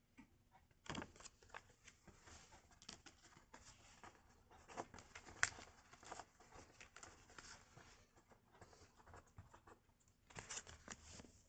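Paper pocket timetables being handled and fanned through by hand: faint paper rustles and light taps, with a sharper snap about five seconds in.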